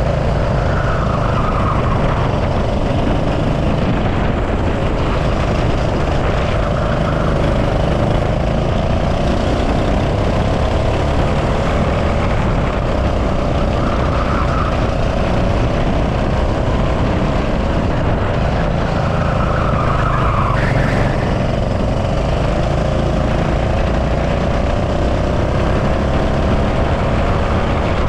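Go-kart engine running hard at speed, its pitch dipping and climbing gently as the kart lifts off and gets back on the throttle. Heavy low wind rumble on the body-mounted camera's microphone sits underneath.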